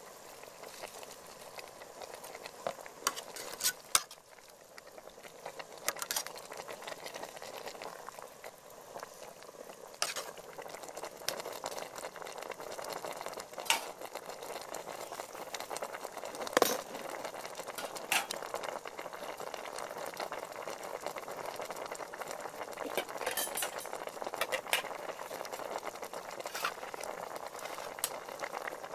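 Fish soup bubbling steadily in a large aluminium pot while a metal ladle stirs it, knocking against the pot now and then, loudest about halfway through.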